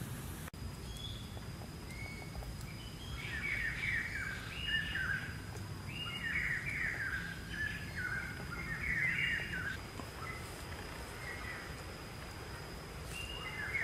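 Birds singing in several runs of quick chirping notes, over a thin steady high-pitched whine.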